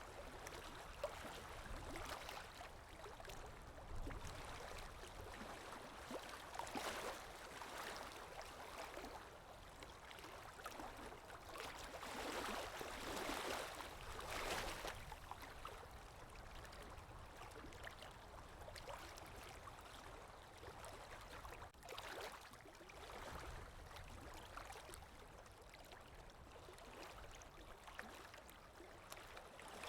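Lake Erie waves washing onto the shore, a faint hiss of water that swells and fades every few seconds.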